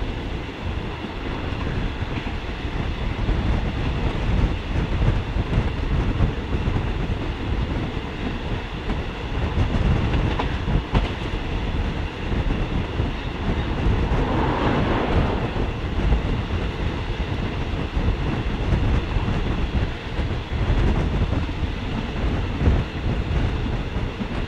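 Passenger train carriage running along the track, heard from an open carriage window: a steady, loud rumble of wheels on rail, with a brief swell of higher noise about two thirds of the way through.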